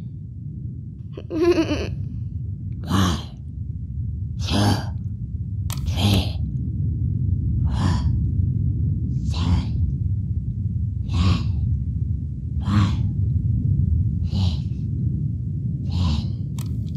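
A person's heavy, rasping breaths or gasps, about ten in a row roughly every second and a half, over a steady low rumble.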